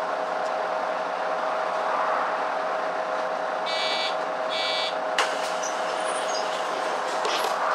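On board a Mercedes-Benz O530 Citaro city bus with the engine running: a steady hum and rumble with a constant mid-pitched whine. About four seconds in come two short electronic beeps, and a sharp click follows just after.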